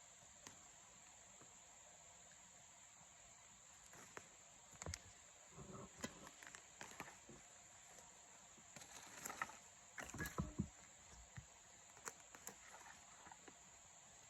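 Steady high chirring of insects, with scattered crunches, scrapes and knocks of digging through rocky garden soil, bunched about a third of the way in and again past the middle.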